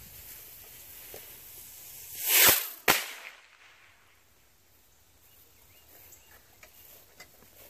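Large Texas pop bottle rocket: the lit fuse hissing faintly, a short whoosh as the rocket lifts off a little over two seconds in, then one sharp pop of its report about half a second later.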